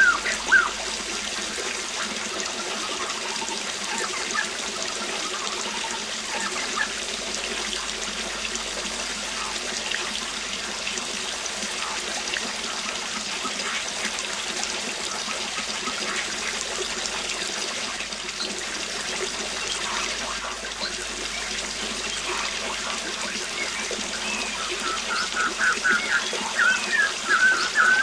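Waterfall running steadily, with birds calling over it; a quick run of repeated chirps sounds right at the start and again near the end.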